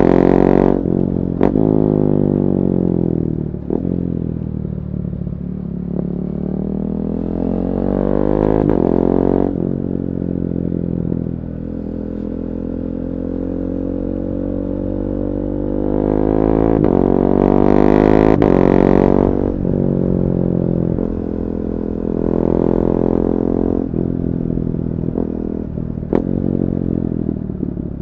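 KTM 390 Duke's single-cylinder engine through a decatted Akrapovic slip-on exhaust, revving up and falling back several times with a steadier stretch in the middle. A few sharp cracks sound, mostly as the revs drop.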